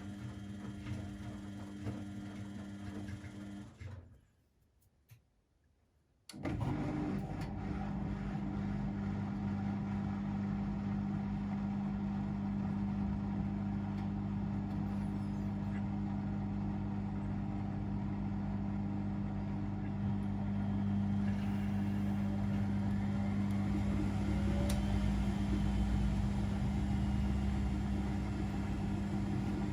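Household washing machine or tumble dryer running with a steady low motor hum. The sound drops to near silence for about two seconds around four seconds in, then the hum comes back louder and carries on steadily.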